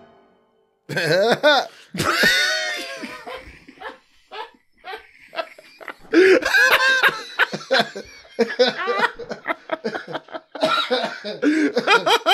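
People laughing hard in repeated bursts, starting about a second in, with a cough or two among the laughs.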